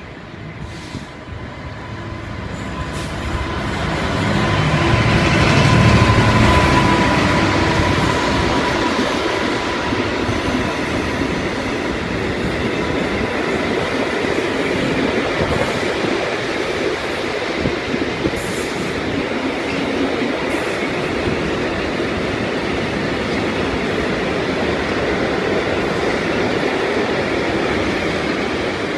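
Diesel-hauled freight train passing at speed: the locomotive's rumble builds to its loudest about six seconds in, then a long rake of tank wagons rolls through with a steady rumble of wheels on rail. A thin steady whine sounds over the first several seconds.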